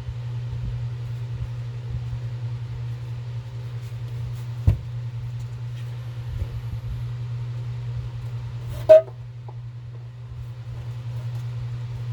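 A steady low hum, with two brief knocks: a dull one about four and a half seconds in and a louder, sharper one near nine seconds.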